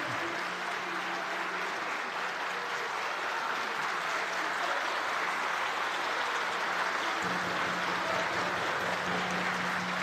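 A seated audience of council members applauding, a steady sustained clapping through the whole stretch.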